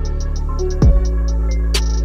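Background electronic music with a steady beat: deep kick drums that drop in pitch, sharp snare hits and light hi-hat ticks over a held bass note.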